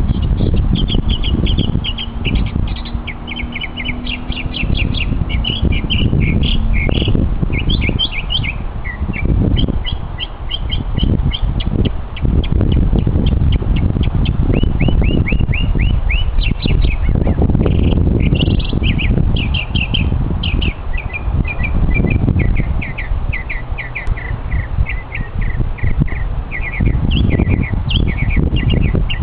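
Mockingbird singing: runs of short, quickly repeated notes, each run switching to a new phrase type every second or two. A loud, uneven low rumble sits underneath throughout.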